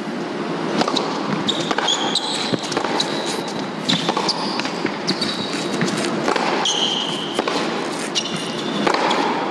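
Tennis rally on an indoor hard court: a serve, then racquets striking the ball in turn, with short high sneaker squeaks on the court over a steady crowd and hall background.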